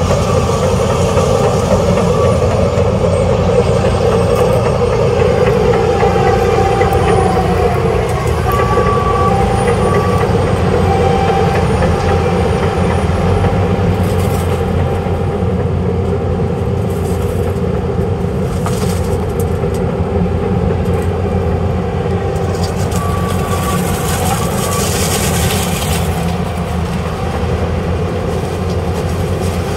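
Case IH sugarcane harvester's diesel engine running steadily under load as it cuts and chops cane, with the engine of the tractor pulling the infielder wagon alongside; a loud continuous mechanical drone. A rushing hiss rises and falls a few times in the second half.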